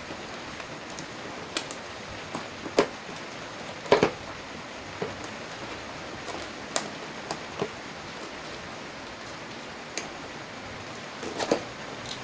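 Cardboard box being opened by hand: scattered rustles and sharp clicks of cardboard and packing tape, the sharpest about three and four seconds in and again near the end, over a steady hiss.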